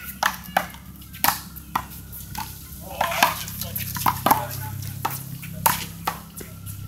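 Small rubber handball in an American one-wall handball game: a string of sharp, irregular smacks as the ball is struck by hand and bounces off the concrete wall and court.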